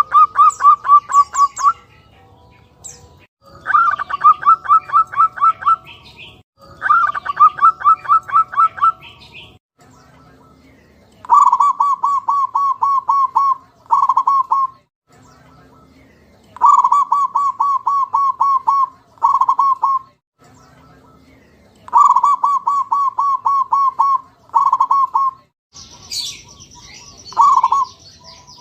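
Zebra dove (perkutut) calling: phrases of about ten rapid staccato cooing notes, many followed by a shorter burst of a few notes, repeated every few seconds. A high steady buzz joins in near the end.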